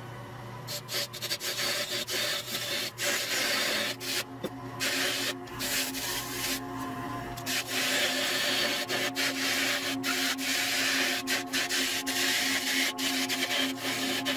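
Turning tool cutting into a spinning cedar blank on a wood lathe: a rough scraping hiss that starts and stops several times as the tool goes on and off the wood, over the steady hum of the lathe motor.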